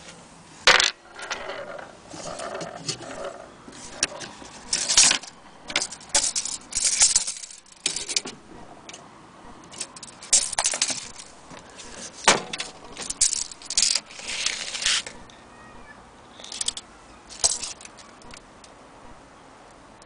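Small metal parts clinking and rattling in a dozen or so irregular bursts, with a pause in the middle and sparser clinks near the end.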